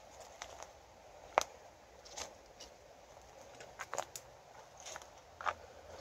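Footsteps through forest undergrowth: irregular crunches and snaps of leaf litter and twigs, the sharpest about a second and a half in, over an otherwise very quiet wood.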